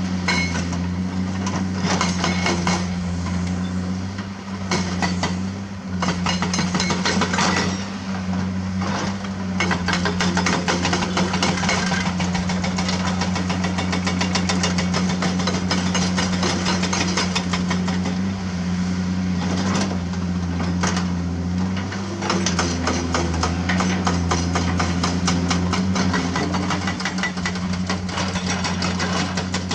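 Diesel engine of a CAT excavator running steadily under load while a hydraulic rock breaker hammers limestone in rapid, even blows, with breaks in the hammering.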